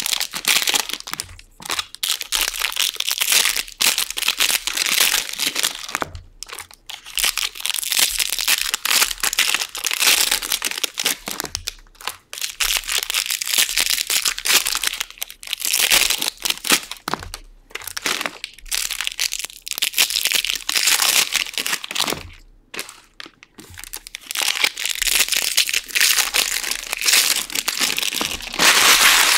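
Foil wrappers of Bowman Draft jumbo baseball card packs being torn open and crinkled by hand: a dense, near-continuous crackle with a few short breaks between packs.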